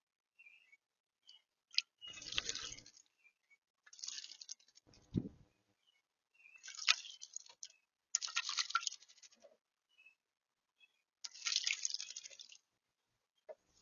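A blue jay bathing in shallow water, splashing in five or six bursts of about a second each, with a dull thump in the middle and faint short chirps between the splashes.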